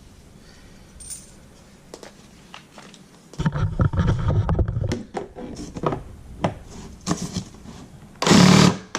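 Handling noise from working a fish mount loose from the cardboard it is screwed into: scraping and rustling about three and a half seconds in, then scattered knocks and clicks, with a short loud burst near the end.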